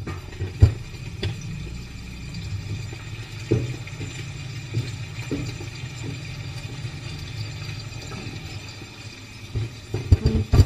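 Kitchen handling noise: a steady low rumble with scattered short knocks and bumps, coming thicker near the end, as the camera is moved around a pan simmering on a gas burner.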